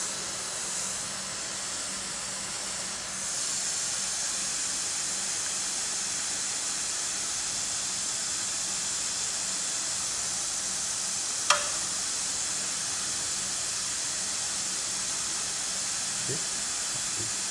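Steady hiss of pressurised gas on a refrigeration test bench fitted with a low-pressure switch and gauge manifold. A single sharp click comes about two thirds of the way through.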